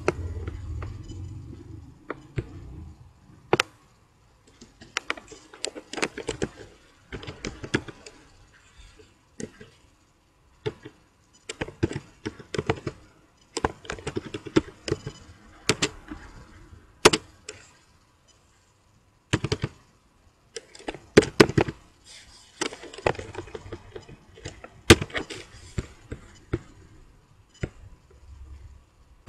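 Typing on a computer keyboard: irregular bursts of keystrokes with short pauses between them, and a low hum in the first two seconds.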